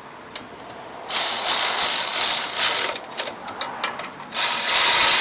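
Worn-out drill tightening bolts with a ratcheting whir, in two runs of about two seconds each and sharp clicks between them. The owner calls the drill at the end of its life.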